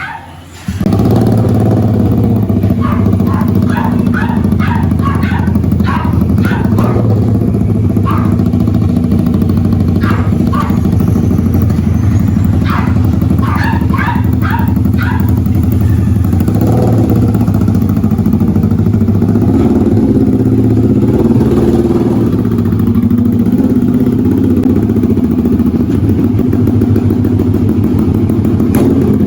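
Bristol Bobber 650 motorcycle engine starting about a second in, then idling steadily through its exhaust.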